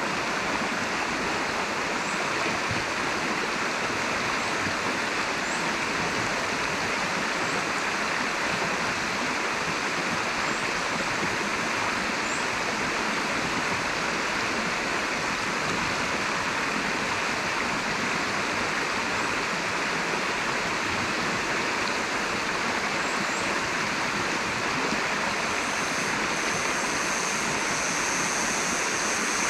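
River water flowing: a steady rush of water. Faint short high chirps sound now and then, and a steady high-pitched buzz comes in near the end.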